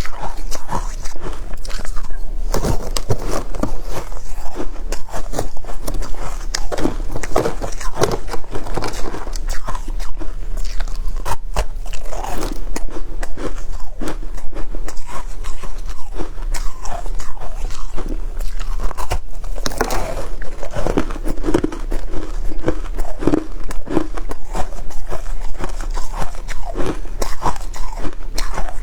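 Shaved ice being bitten and chewed, crunching in many quick, irregular bites.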